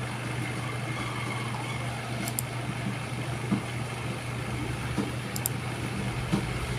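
A steady low mechanical hum under a faint background noise, with a soft knock about three and a half seconds in.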